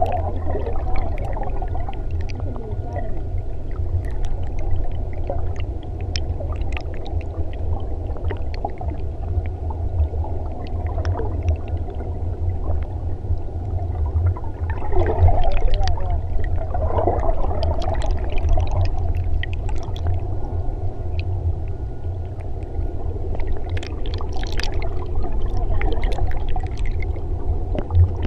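River current heard underwater through a submerged camera: a steady muffled low rumble with gurgling and scattered small clicks, swelling louder about halfway through.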